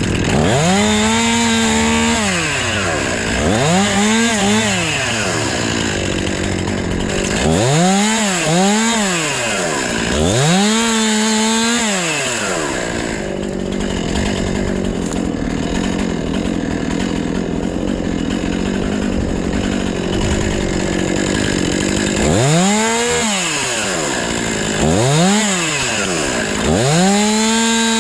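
Chainsaw engine revved up to full throttle and let back down to idle, about seven times. There is a longer stretch of lower, steadier running in the middle.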